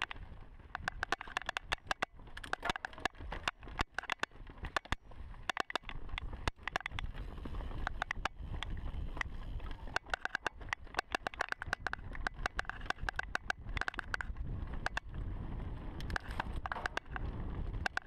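Frequent, irregular sharp clicks, several a second, over the low rumble of a 2015 Giant Reign Advanced mountain bike riding down a dirt singletrack.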